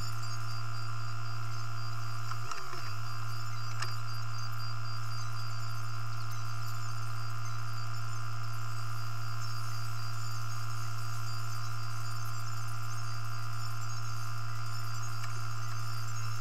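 Steady low hum of a JCB telehandler running, heard inside its cab, unchanging, with a brief dip about two and a half seconds in.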